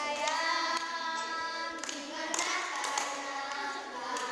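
A group of children singing together in held notes, with a few hand claps.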